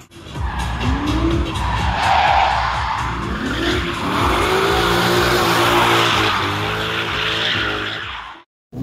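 Drift car sliding, its engine revving up and down in repeated rising sweeps while the tyres squeal. The sound cuts off abruptly shortly before the end.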